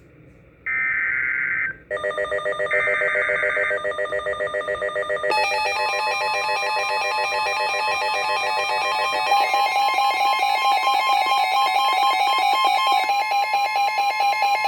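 NOAA Weather Radio Emergency Alert System activation for a severe thunderstorm warning, received on a weather radio. It opens with two bursts of the screeching SAME digital data header, about a second each. From about two seconds in, a loud pulsing electronic alert alarm sounds, and from about six seconds in the steady 1050 Hz warning alarm tone joins it.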